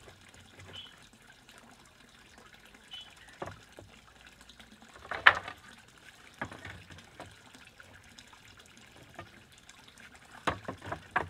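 Wooden planks knocking against each other and the deck frame as they are handled and set in place: scattered sharp knocks, the loudest about five seconds in and a quick run of several near the end. A faint steady trickle of pond water underneath.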